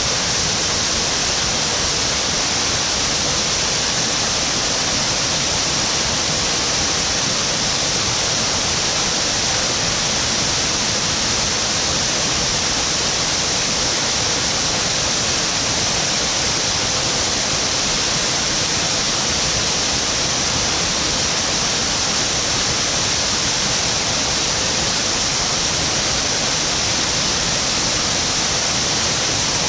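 Waterfall pouring steadily: a loud, even hiss of falling water with no let-up.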